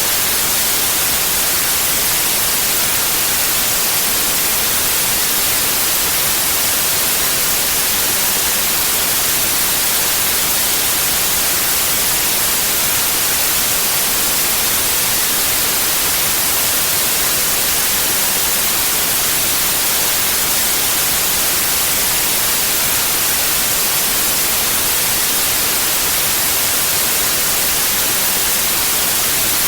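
Steady electronic white noise: an even, unchanging hiss, brightest in the treble.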